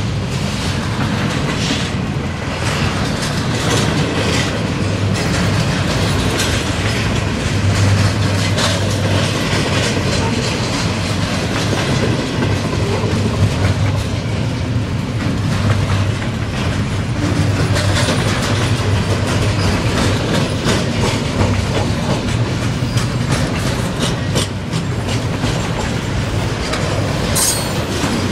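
Double-stack intermodal freight train's well cars rolling steadily past: a continuous loud rumble of steel wheels on rail, with frequent clicks as the wheels cross rail joints.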